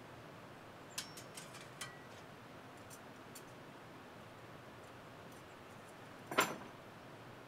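Small metal tools clicking and clinking as they are handled: a quick run of light clicks about a second in with a brief faint ring, then one louder metallic clank just past six seconds.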